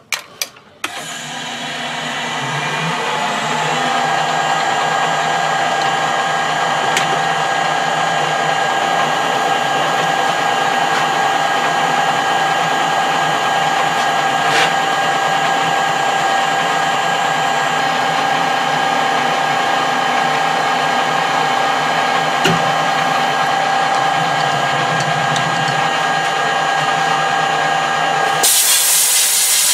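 Metal lathe starting up and running steadily under a roughing cut with a high-speed-steel tool, with a steady whine throughout. A short burst of loud hiss comes near the end.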